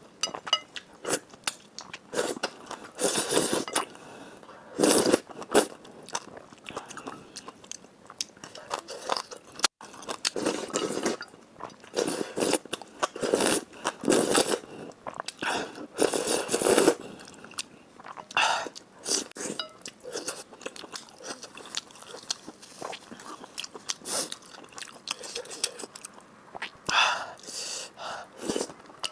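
Close-miked eating of Buldak spicy chicken noodles: repeated bites, slurps and chewing in short bursts of up to a second, with brief pauses between.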